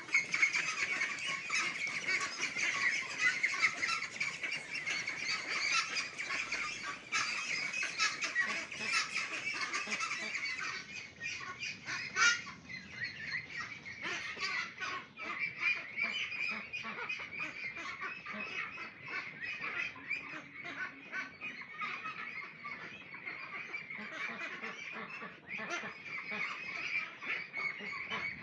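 A large flock of 29-day-old hybrid ducks calling all together in a constant, overlapping chatter, with one call standing out louder about twelve seconds in.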